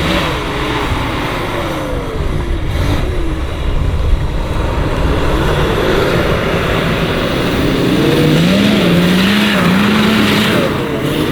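Off-road 4x4's engine revving up and down repeatedly under load, loudest near the end, over a steady rushing noise.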